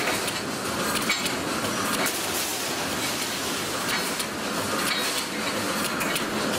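Automatic wire mesh welding machine running: a steady mechanical clatter, with a sharp metallic clank roughly once a second as the machine cycles through its welds.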